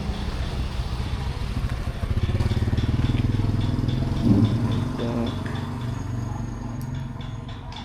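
A motorbike engine running, growing louder about two seconds in and fading again after the middle, as if passing by.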